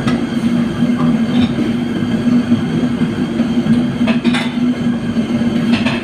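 Steady mechanical hum and rumble with a few sharp clinks.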